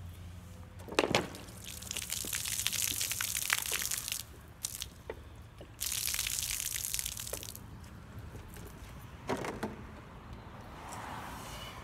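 Water pouring out of a plastic soda bottle and splashing on the ground in two long gushes, with a couple of short knocks from the bottles being handled, one about a second in and one near the end.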